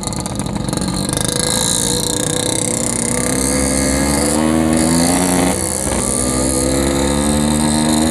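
Yamaha RX-King two-stroke single-cylinder motorcycle engine accelerating under the rider, its pitch rising, dropping briefly about five and a half seconds in at a gear change, then rising again.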